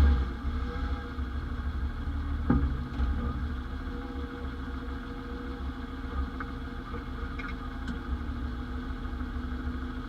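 1991 Ford Explorer's engine running steadily with a low rumble. There is one sharp clunk about two and a half seconds in, and a few faint ticks later.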